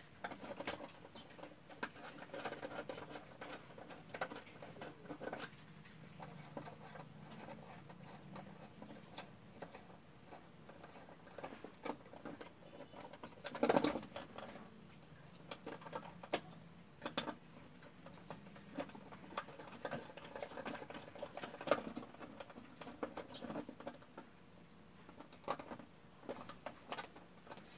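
Faint, scattered clicks and taps of hands handling wired switch and outlet devices and fitting them onto orange plastic utility boxes, with a louder knock about 14 seconds in.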